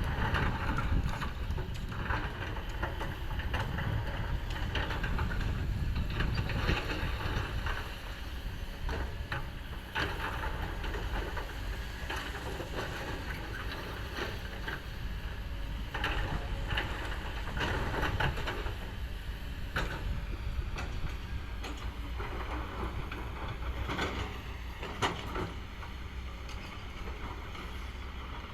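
Kobelco hydraulic excavator's diesel engine running, with scattered knocks and scrapes of its work on rock.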